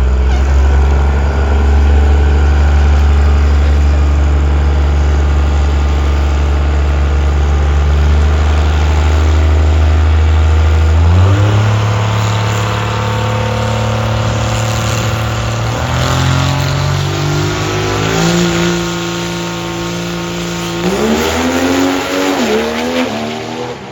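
Turbo-diesel Chevy Nova drag car's engine running loud and steady, then rising in pitch in several steps through the second half.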